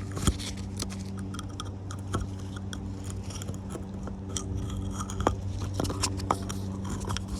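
Scattered small clicks and taps from handling the oil filter housing parts while a new rubber seal is fitted, over a steady low hum.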